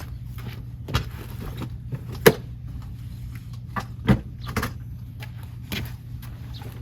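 Irregular sharp clicks and knocks, about half a dozen, over a steady low hum; the loudest knock comes a little over two seconds in.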